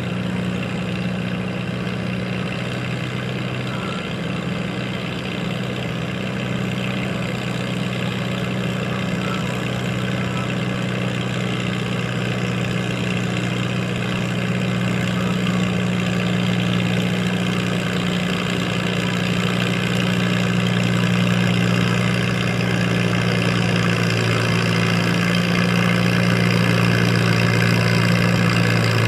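Farm tractor engine idling at a steady pitch, gradually growing louder.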